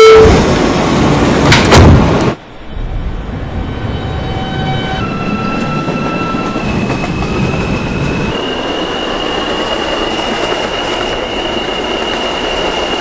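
Subway car doors closing in the first two seconds, ending sharply. Then the E train pulls out: its electric propulsion gives steady whining tones that step up in pitch several times as it accelerates, over the rumble of the wheels on the rails.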